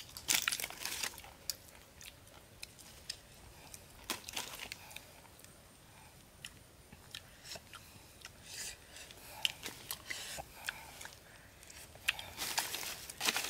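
A person eating boiled snails close up: irregular sharp clicks and short crunchy bursts of chewing and sucking, coming in clusters every few seconds and loudest near the end.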